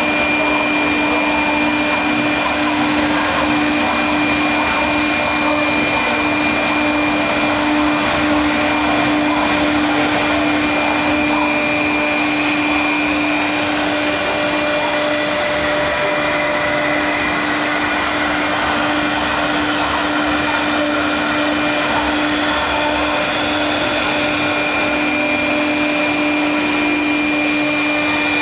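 CNC wood router running steadily, its spindle motor giving a constant hum over an even, noisy rush.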